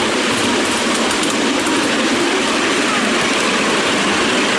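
Miniature railway train running along the track, heard from aboard: a steady rolling rumble of small wheels on the rails.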